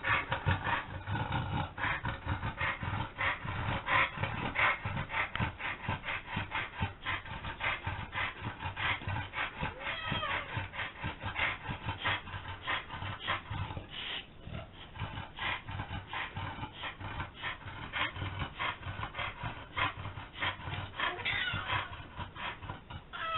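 Rapid, irregular rustling and rubbing close to the microphone, several strokes a second, as a cat plays with a pink feather wand toy.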